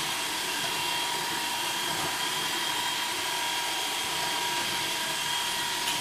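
iRobot Roomba Dirt Dog sweeping robot running, its brush and drive motors giving a steady whine while it is caught under low furniture.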